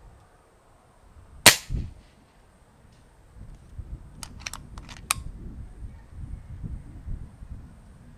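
Kral Puncher Breaker .22 PCP air rifle firing one shot on medium power: a short sharp crack about a second and a half in, with a duller thud a moment later. A quick run of sharp clicks follows around four to five seconds in, over a low rumble.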